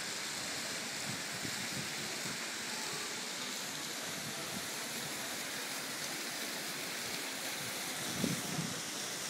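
Steady hiss and splash of ground-level fountain jets spouting up from the paving, with a short knock near the end.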